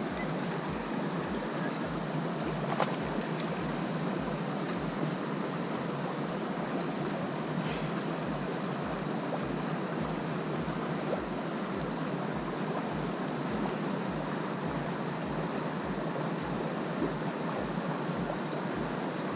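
A small river running over shallows: a steady rush and ripple of moving water.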